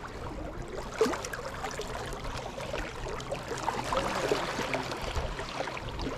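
Water splashing and trickling close around a kayak, a busy patter of small drips and splashes, with one sharper splash or knock about a second in.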